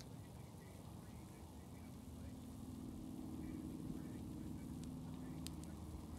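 A low, steady rumble with a motor-like hum that comes in and grows louder about two and a half seconds in.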